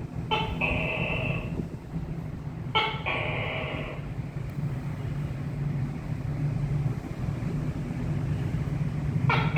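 Tokay gecko calling three times, each call a sharp clipped first syllable followed by a longer ringing 'kay', the last starting near the end. A steady low hum runs underneath.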